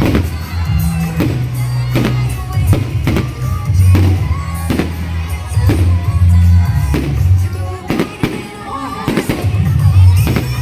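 Loud music with a heavy bass line, over a run of sharp fireworks bangs coming roughly every second, with crowd voices underneath.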